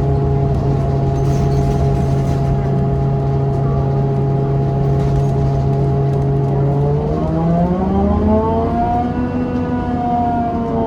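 Drivetrain of a 2014 New Flyer XDE40 diesel-electric hybrid bus: a steady droning tone with overtones that rises in pitch about seven seconds in and then holds at the higher pitch as the bus picks up speed.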